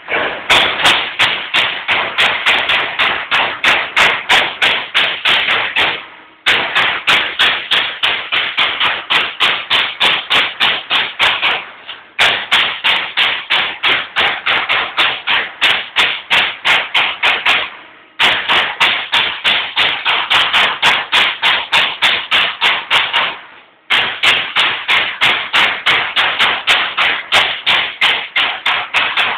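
Baykal BPM-T CNC turret punch press punching sheet metal: rapid even strokes, about four a second, in runs of about six seconds broken by short pauses.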